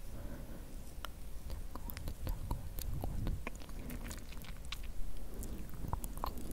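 Fingers pulling and stretching synthetic fake cobweb close to the microphone: irregular little crackles and sharp clicks over a soft low rumble.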